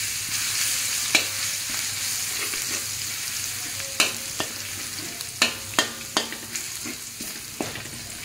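Chopped garlic sizzling in oil in a hot wok, a steady hiss, while a spatula stirs it and knocks and scrapes against the pan every second or so.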